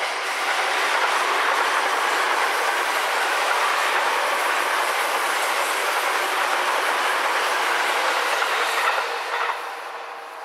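Seibu 9000 series electric train passing close by: a steady rush of wheel and running noise on the rails. It swells just after the start and dies away near the end as the last car goes by.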